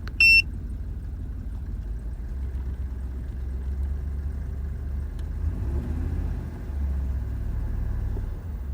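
2003 GMC Yukon XL Denali's 6.0-litre V8 idling with a low, uneven rumble; the engine has a misfire. A short electronic beep sounds at the very start.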